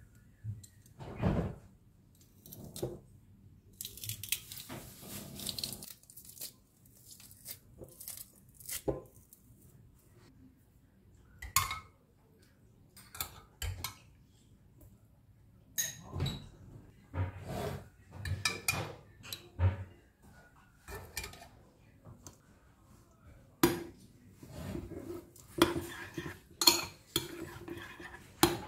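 Kitchen utensil sounds: a metal garlic press worked over a glass bowl, with scattered knocks and clatters of metal tools on a wooden table. Near the end, a metal spoon clinks repeatedly against the glass bowl while stirring a garlic and white sauce mix.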